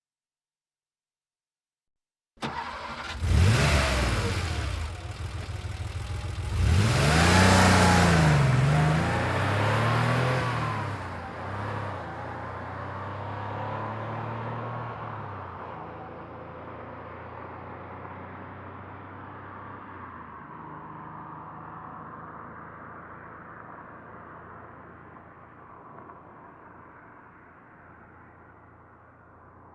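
A 1990 Porsche 911's air-cooled flat-six starts suddenly after a couple of seconds of silence and revs briefly. It then pulls away hard, its note climbing and dropping twice as it accelerates. After that it fades steadily as the car drives off.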